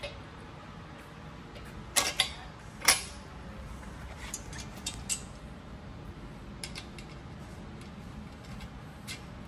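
Metal clicks and knocks from a patient lift's steel boom and mast as they are handled and the boom pivot is pinned. Three sharp knocks come about two to three seconds in, followed by scattered lighter clicks.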